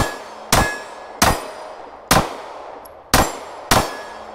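Six pistol shots from a Glock 26 9mm subcompact fired in a steady, unhurried string, about one every half second to a second. A brief ringing tone lingers after the first two shots.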